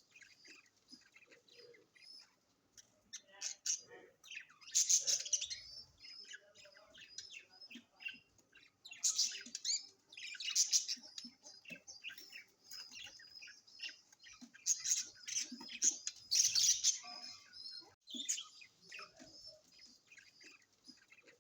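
Many birds chirping and twittering together in high-pitched calls, with louder bursts of calling every few seconds.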